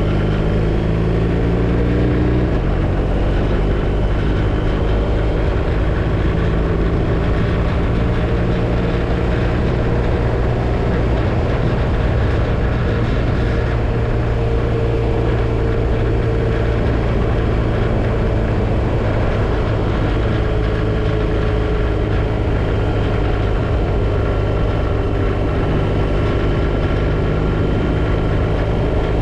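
BMW R1250RT boxer-twin engine running on the road at a steady cruising pace, heard from on board the motorcycle. The engine note shifts in pitch about two seconds in, then holds steady.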